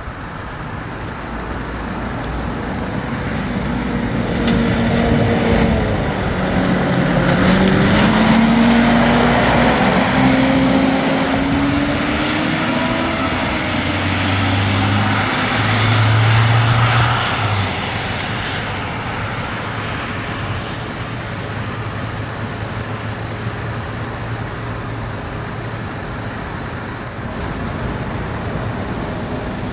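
Emergency vehicles driving past on an emergency run, their engine pitch gliding down and then up as they pass. About two-thirds of the way through come two low, steady horn blasts that start and stop abruptly. Steady traffic noise follows.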